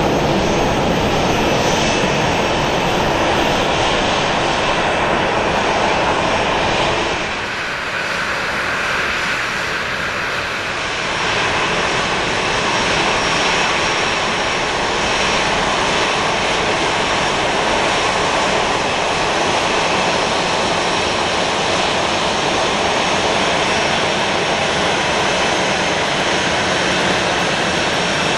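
Boeing 737-700's CFM56-7B turbofan engines running at taxi power, a steady jet rush with a faint high whine as the airliner taxis. The sound dips briefly about seven seconds in, then carries on as before.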